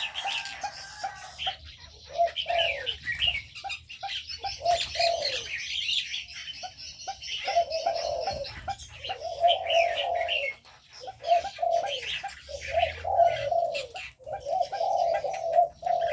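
Spotted doves cooing over and over, the coos coming thicker in the second half, while many small aviary birds chirp and twitter high above them.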